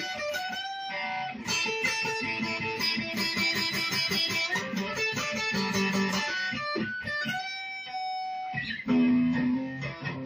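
Acoustic guitar music: a quick run of plucked notes, with a louder low note struck about nine seconds in.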